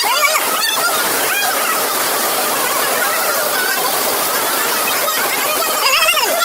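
Flash-flood water rushing steadily down a road, with short wavering high-pitched calls about a second in and near the end.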